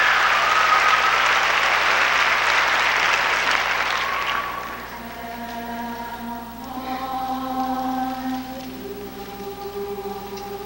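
Audience applause that dies away after about four seconds, then a mixed show choir softly singing long held chords that shift every couple of seconds.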